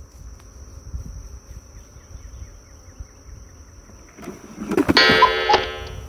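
Low outdoor background rumble with a faint steady high tone. About four and a half seconds in, background music comes in, holding a steady chord.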